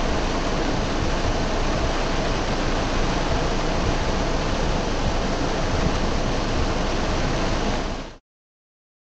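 Heavy rain falling on a car's roof and windshield, heard from inside the car as a steady hiss that cuts off suddenly about eight seconds in.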